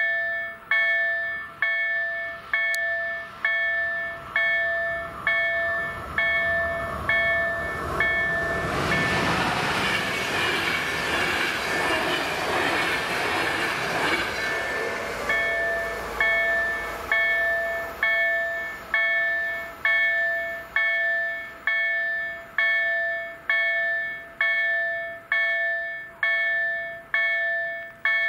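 Level crossing warning bell ringing in a steady rhythm, about three strikes every two seconds. From about eight seconds in, a passenger train passes through the crossing for some seven seconds, its rushing wheel and rail noise drowning the bell, which then rings clear again.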